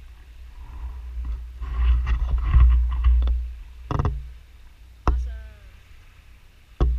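Wind buffeting the microphone of a camera riding along a rough dirt shoreline track, loudest a couple of seconds in, with a few sharp knocks and a short falling squeak about five seconds in.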